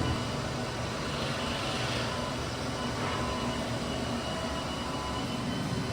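Rebuilt Fruitland rotary-vane vacuum pump running steadily.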